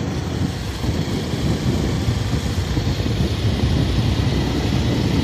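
Heavy wind rumble on the microphone of a moving Hero Xpulse 200 motorcycle, with its single-cylinder engine running steadily underneath.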